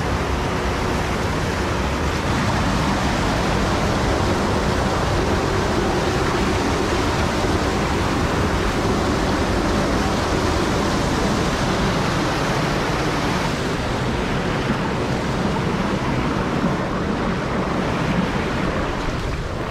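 Creek waterfall rushing steadily over rock boulders, loud and close, the water pouring over the climber's hands.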